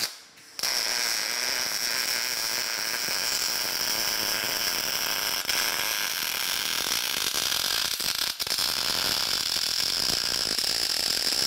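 Electric arc welding on steel angle iron: a steady crackling sizzle as a weld bead is run to fill a corner joint of the frame. It starts about half a second in, with a brief break about eight seconds in.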